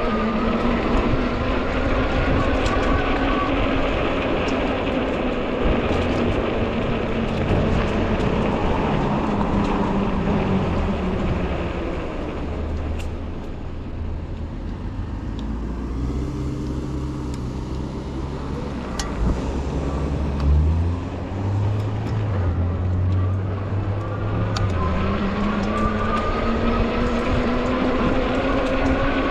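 Hub motor of an Ecotric folding fat-tire e-bike whining under way, its pitch rising and falling with speed, over wind and road rumble. The whine drops away in the middle, where a lower steady hum takes over, and climbs back near the end.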